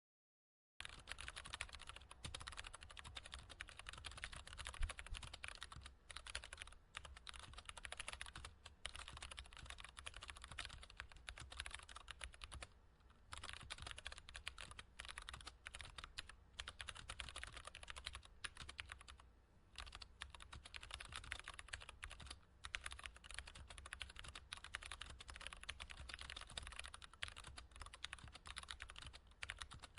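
Typing on a computer keyboard: a continuous, quiet patter of key clicks and taps that starts about a second in, with a few brief pauses in the typing.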